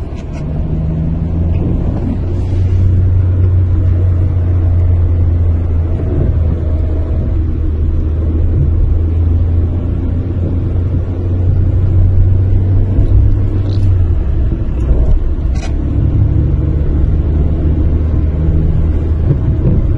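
Peugeot 206 1.4 petrol heard from inside the cabin while driving: a steady low drivetrain drone with a tonal gear noise over it. This is the noise the car makes when the foot comes off the accelerator, put down to a worn helical gear in the gearbox whose teeth are eaten away.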